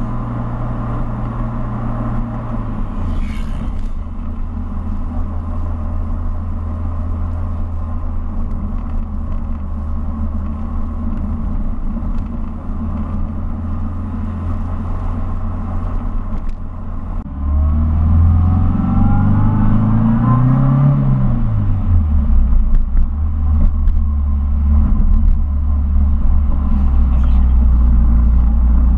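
Mini's engine running under way with road noise. About three seconds in the engine note drops. About halfway through it gets louder, and its pitch climbs and then falls away before settling into a steady drone.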